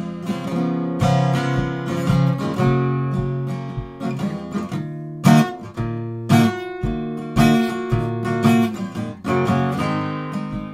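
Steel-string acoustic guitar playing chords, with the notes changing every second or so and no singing.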